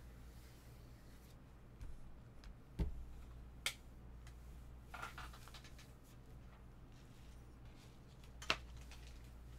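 Quiet room tone with a steady low hum, broken by a soft thump about three seconds in and two short sharp clicks, one a second later and a louder one near the end.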